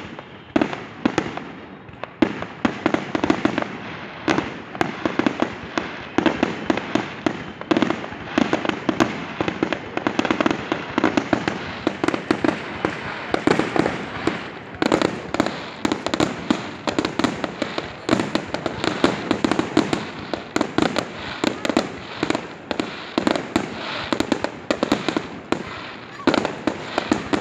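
Fireworks display going off in a dense, continuous barrage: many bangs and crackles a second, with louder single bangs standing out among them.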